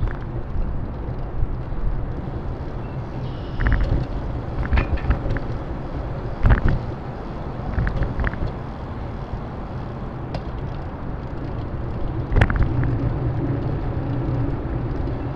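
Steady low rumble of a bicycle ride along a city street, with sharp knocks and rattles as the bike goes over bumps, the loudest about six and a half and twelve and a half seconds in.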